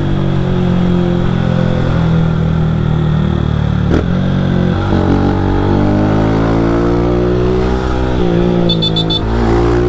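Motorcycle engine running through an aftermarket GRS exhaust while riding. It holds a steady pitch for the first few seconds, then revs up, drops at a gear change about eight seconds in, and climbs again.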